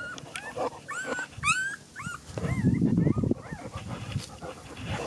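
Rottweiler whining in a string of short, high whines that rise and fall in pitch, two or three a second, with a rough low noise about halfway through.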